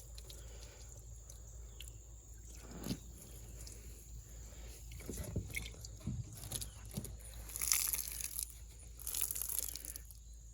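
An old sponge dabbed and squeezed in the water-filled cylinders of a 1950 John Deere M engine to soak the water out, with scattered soft wet crunching and knocking and two brief louder scrapes near the end.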